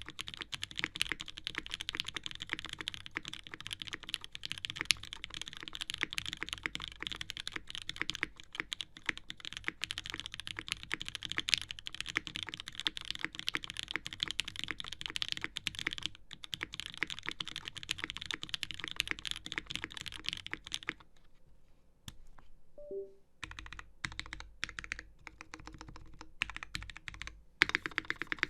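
Typing on a custom Haus mechanical keyboard with an aluminium plate, lubed Gateron Ink Black linear switches and GMK keycaps: a fast, steady stream of keystrokes. About three quarters of the way through, the typing stops for about two seconds, then resumes.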